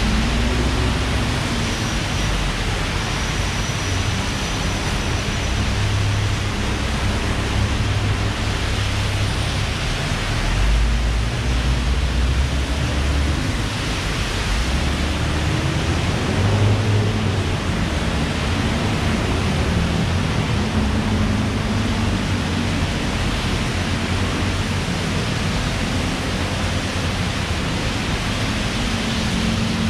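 Heavy rain falling steadily, a dense, even hiss, with a low rumble that rises and falls underneath.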